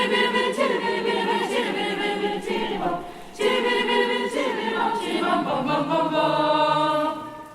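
Youth choir singing in several voices, with no instruments evident. A phrase breaks off about three seconds in, and the second phrase ends on a long held chord that fades out near the end.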